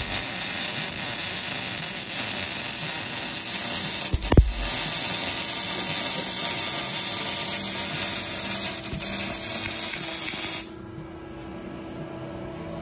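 Arc welding on a truck's exhaust pipe joint: a steady crackling hiss of the welding arc, with a short break and a knock about four seconds in. It cuts off about ten and a half seconds in as the weld bead is finished, leaving a quieter shop hum.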